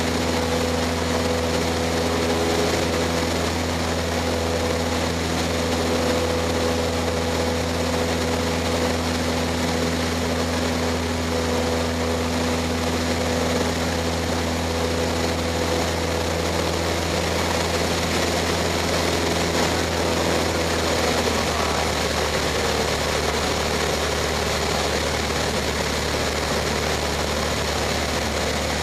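Cessna 152's four-cylinder Lycoming piston engine and propeller droning steadily in flight, with rushing air noise. About two-thirds of the way through the engine note drops slightly.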